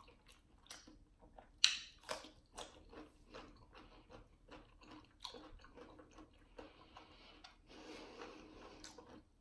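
A pickle spear being bitten and chewed: a sharp crunchy bite about a second and a half in, then wet, crunchy chewing with small mouth clicks.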